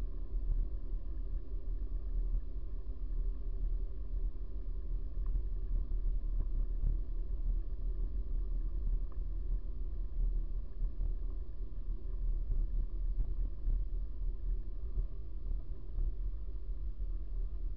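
Steady low rumble of wind buffeting and rolling vibration on a bicycle-mounted camera's microphone as the bicycle rides over rough pavement.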